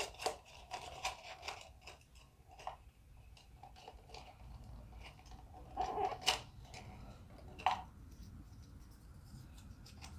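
Folded paper slips rustling and tumbling inside a small clear jar as it is shaken and swirled, then fingers rummaging among the slips to draw some out. Short crackly rustles come thick at first and then more sparsely, with a few sharper clicks of the jar.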